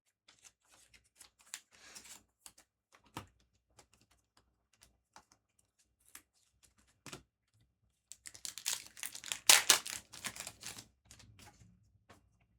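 Foil booster pack wrapper being torn open and crinkled, loudest from about eight to eleven seconds in, after a stretch of light, scattered clicks and taps from cards being handled.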